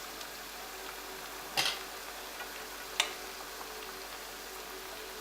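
Pot of salted water with broccoli in it, boiling with a steady hiss. Two sharp ticks sound, about one and a half and three seconds in.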